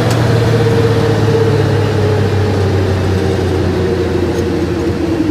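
1965 Ford Galaxie heard from inside the cabin on the move: engine and road noise, with a steady whine from the transmission that slowly falls in pitch. The whine comes from the old transmission, which is worn out.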